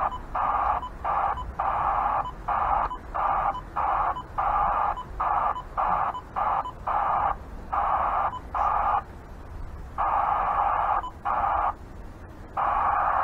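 Uniden handheld scanner radio playing bursts of thin radio static through its speaker, cutting in and out about twice a second, then in longer stretches of a second or two near the end.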